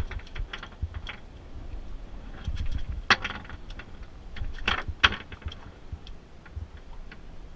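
A fluke flopping and slapping on a fiberglass boat deck, with light clatters of hook and line: a few sharp slaps, the loudest about three and five seconds in, over a low rumble.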